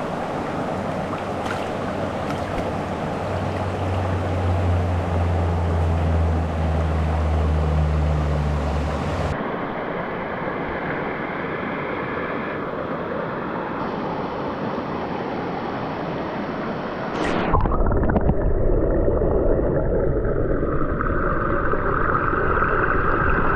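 Mountain river water rushing over rocks, a steady loud rush. Its tone changes abruptly twice, about nine seconds in and again near seventeen seconds.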